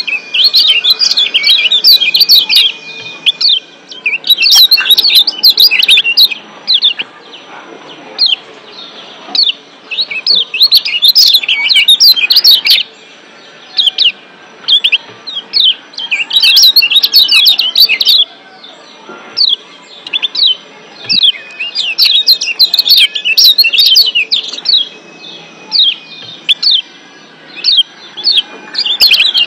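Lombok yellow white-eye (kecial kuning, a Zosterops white-eye) giving rapid, high-pitched 'ciak' chirp calls in repeated bursts of a second or two, with short pauses between bursts.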